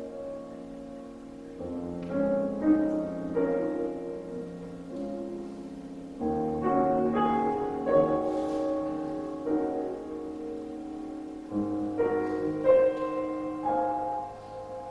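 Solo piano playing slow, sustained chords, with new chords struck every second or two.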